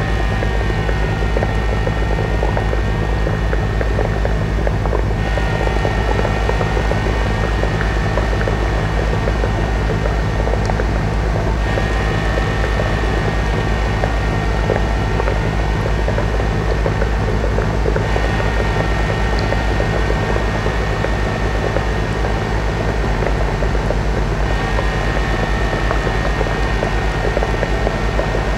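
Electronic drone music played live through a mixing desk: a dense, loud low drone under a steady high tone, with slow wavering tones that sweep up and down around it and change every six seconds or so.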